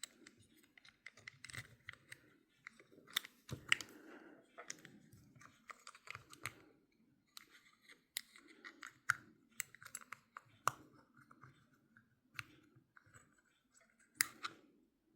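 Small metal parts of an Abumatic 150 spincast fishing reel being handled and fitted together, with irregular light clicks and scrapes, likely as the side plate is set in place.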